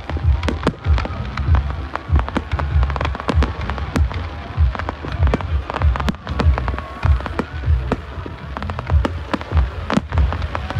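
A fireworks display going off continuously: a dense run of sharp cracks and pops, several a second, over heavy low thuds.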